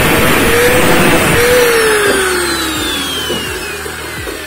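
Angle grinder grinding a steel exhaust pipe piece. About a second and a half in it is switched off, and its motor whine falls steadily as the disc spins down.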